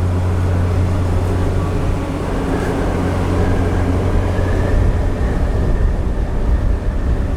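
The second Hahajima Maru's engines droning steadily, heard from on deck as the ship manoeuvres into its berth; the deep hum eases about four seconds in while a low rumble carries on.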